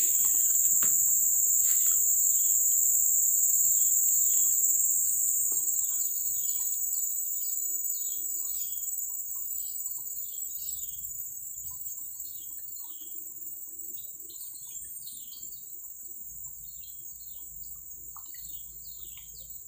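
A steady, high-pitched insect drone with birds chirping in many short, repeated notes over it. The whole gets quieter after about five seconds.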